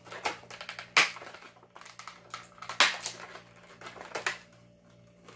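Clear plastic packaging crackling and snapping as it is pried and torn open by hand, with sharp loud snaps about a second in and again near the three-second mark.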